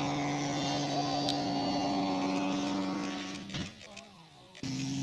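Engine and propeller of a radio-controlled model warbird droning steadily overhead. The drone fades away about three and a half seconds in, then cuts back in abruptly near the end.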